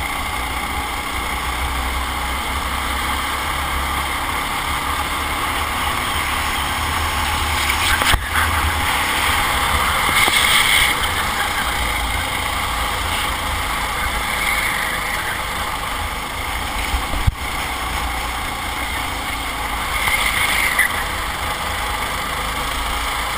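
Racing kart's engine running under load, heard from on board, with wind and road noise. Two sharp knocks about eight and seventeen seconds in, and two brief louder hissing bursts about ten and twenty seconds in.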